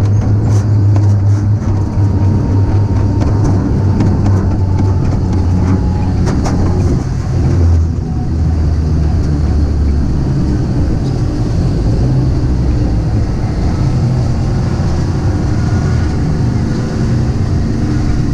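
Wiegand bobkart running along its track, a steady low rumble from the cart and wheels, with a few short rattling clicks in the first couple of seconds.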